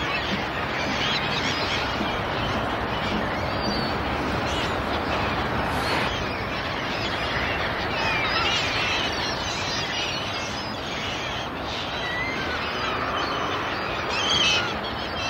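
Many birds calling, short scattered calls over a steady rush of open-air noise, with one louder call near the end.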